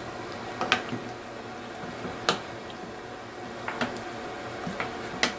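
A cooking spoon clinking against a pot of stew, about five short, sharp clinks spaced irregularly, over a steady low background hiss.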